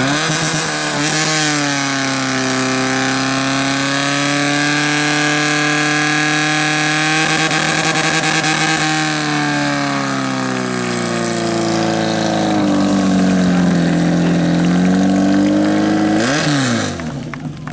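Portable fire pump's engine revving up to full speed and running hard as it drives water through the hoses; its pitch sags and recovers in the second half, then falls sharply as it is throttled down near the end.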